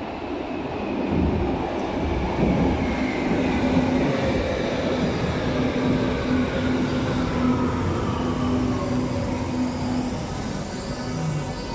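Berlin U-Bahn train pulling into an underground station and braking as it comes alongside the platform. The rumble of the train grows about a second in, and a whine of several tones falls steadily in pitch as it slows, over a steady low hum.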